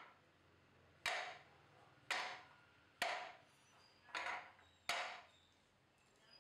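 Five short knocks, about one a second, as baked cupcakes are pulled out of a metal muffin tin and set down on a stone counter.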